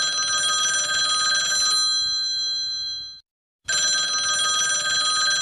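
Telephone ringing: a trilling bell ring that stops about three seconds in and starts again half a second later.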